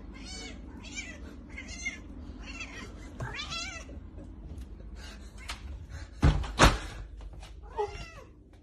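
A cat meowing over and over in short, high calls, with two loud knocks about six and a half seconds in.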